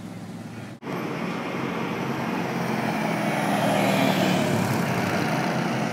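Four-wheeler ATV engine running as it drives past close by, the sound rising in loudness after a brief break about a second in.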